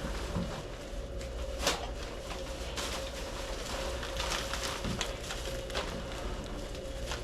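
Trash being emptied by hand: a few short knocks and rustles of handling the bin and bag, the sharpest about one and a half seconds in, over a steady low machinery hum with a faint steady tone.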